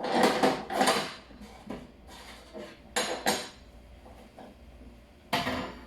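Metal kitchenware clattering: pots and utensils knocking and scraping in a few short bursts, two close together at the start, another about three seconds in and one more near the end.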